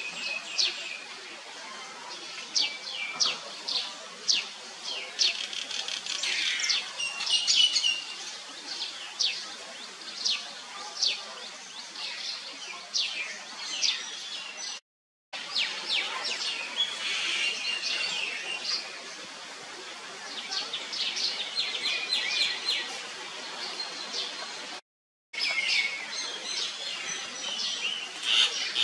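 Small birds chirping: many short, sharp chirps, mostly falling in pitch, with a few rapid trills. The sound cuts out completely for a moment twice.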